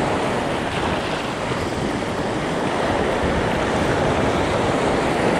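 Surf breaking and washing up over a stony beach, a steady rushing noise, with wind on the microphone.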